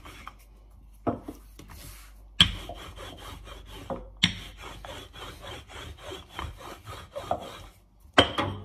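Wooden rolling pin rolled back and forth over pastry dough on a floured stone countertop, a repeated rubbing, with a few sharp knocks, about one, two and a half, four and eight seconds in.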